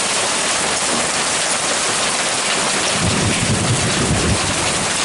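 Hail and rain falling steadily in a dense hiss, with a low rumble about three seconds in.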